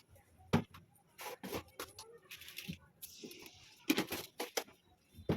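A metal spoon stirring in a kadai of potatoes frying in oil, with repeated sharp clinks and knocks of metal on the pan and a short hiss about halfway through.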